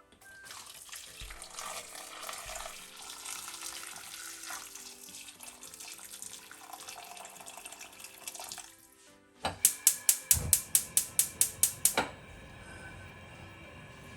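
Boiling water poured into a saucepan of chicken wings, a steady splashing pour for about nine seconds. Then a fast run of sharp clicks, about six a second for two and a half seconds, typical of a gas hob's spark igniter being lit.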